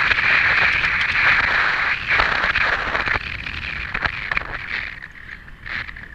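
A horse cantering across turf, heard through a helmet camera: a steady rushing of air and movement with scattered thuds of hooves, the rush fading after about five seconds.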